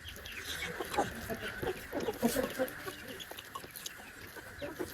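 Close-up eating sounds: irregular wet chewing, smacking and slurping of spicy buffalo curry and bone marrow.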